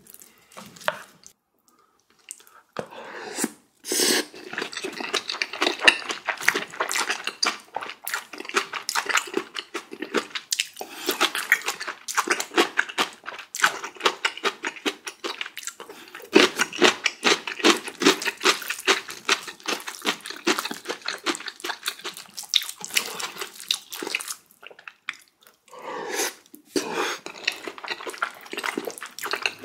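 Spoon stirring thick curry into rice: quick wet squelching and scraping in long runs, broken by a few short pauses.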